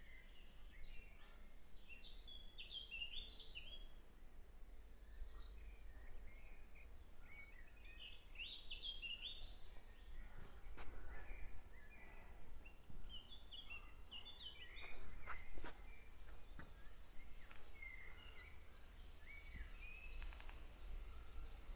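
Songbirds singing in short, quick chirping phrases that recur every few seconds, over a faint low wind rumble, with a few light knocks in the second half.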